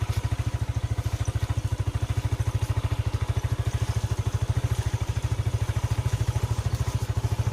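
Motorcycle engine running at steady low revs, a fast even beat of firing pulses.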